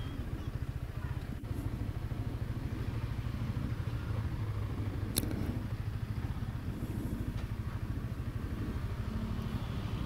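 Motorcycle engine running steadily at low revs, a low even putter.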